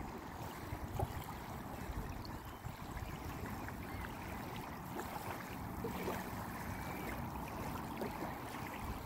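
Small waves lapping on a pebbly lakeshore, a steady watery wash with a low rumble underneath and a few faint ticks.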